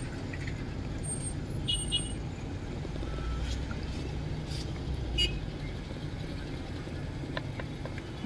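Steady low rumble of a car's engine and road noise heard inside the cabin as it creeps through slow city traffic, with a couple of faint short high tones from outside about two and five seconds in.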